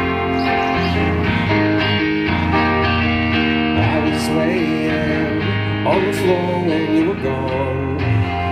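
Live rock band playing between sung lines: strummed acoustic and electric guitars over bass and drums.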